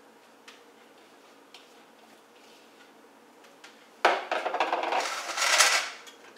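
A few soft clicks of a spatula against a bowl. About four seconds in comes a sudden knock, then a louder scraping, gritty rustle for about two seconds as a spatula pushes raw egg-coated buckwheat groats around a nonstick skillet.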